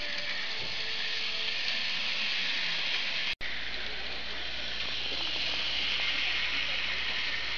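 N-gauge model diesel locomotive and its freight cars running on sectional track, a steady high whirring hiss of the small motor and wheels on the rails. The sound drops out for an instant about three and a half seconds in.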